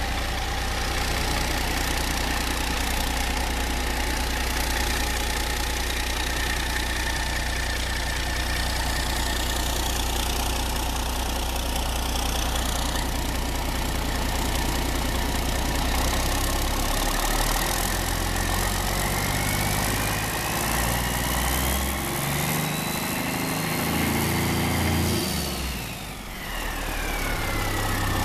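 Caterpillar C-12 inline-six turbo diesel engine running on a test stand, idling steadily. About two-thirds of the way through, it is revved up with a climbing turbocharger whine. Near the end the engine drops back to idle and the whine falls away.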